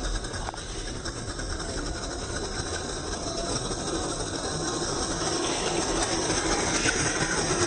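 Axial SCX10 II crawler's 35-turn brushed electric motor and gearbox running, a steady whirring hiss with a faint high whine that grows louder over the last few seconds.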